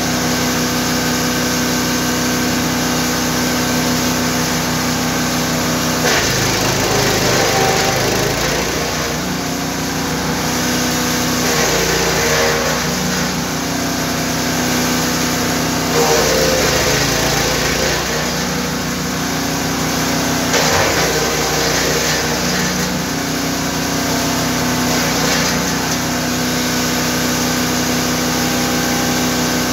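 GTM GTS 900 wood chipper with a 9 hp engine running steadily while branches are fed through and chipped, five crackling bursts a few seconds apart, each with a brief change in engine pitch as it takes the load.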